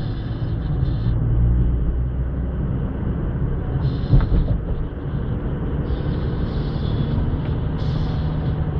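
Car driving through a road tunnel, heard from inside the cabin: a steady low rumble of engine and tyres, with a short thump about four seconds in. Music plays along under it.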